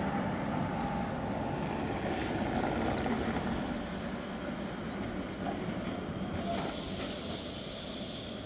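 Trams running on street track: a pair of Tatra T3 cars approaching, then a Škoda 14T low-floor tram running through a curve over the rails. A high hiss joins in for the last couple of seconds.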